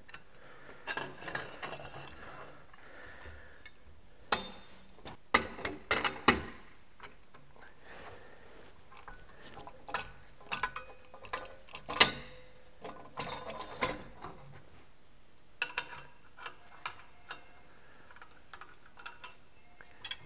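Steel guardrail post clamp being handled and cranked tight onto a plywood parapet wall: irregular metallic clicks, clanks and knocks in clusters, the loudest a few seconds in and again about twelve seconds in.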